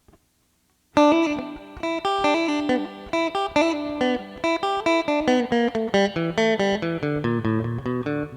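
Guitar playing a quick melodic line of single plucked notes, starting sharply about a second in after a near-silent pause.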